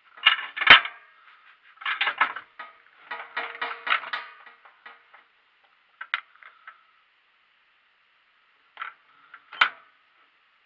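Hand tool clinking and scraping against metal parts: three quick runs of scrapes and clicks in the first half, then a few single sharp metallic clicks, the loudest of them about a second before the end.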